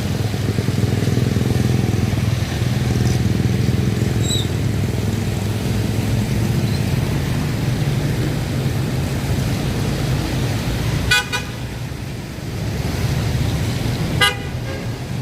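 Road traffic with a vehicle engine running steadily close by, and two short horn toots about three seconds apart near the end.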